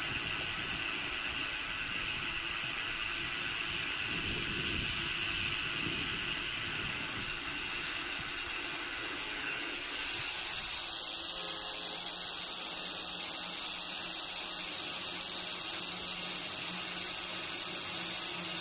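Bicycle freewheel ratcheting steadily while coasting, mixed with road and wind noise.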